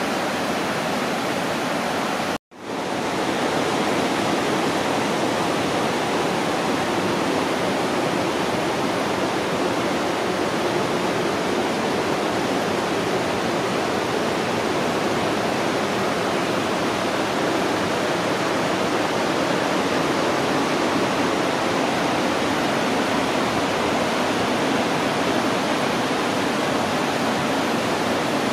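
Lynn Creek rushing over rocky rapids: a steady rush of running water. It cuts out for a moment about two and a half seconds in.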